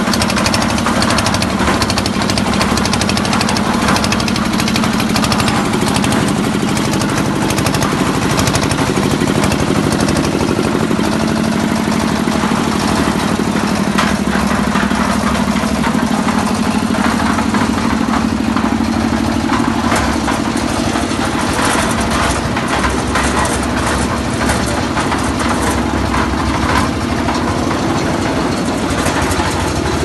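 The concrete mixer's diesel engine running steadily at a constant speed, with a rapid knocking beat.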